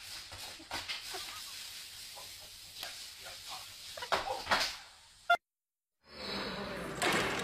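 Water spraying from a garden hose onto a wet concrete floor: a steady hiss with scattered splashes and knocks. It ends in a sharp click about five seconds in, and after a brief silence a louder rushing noise starts.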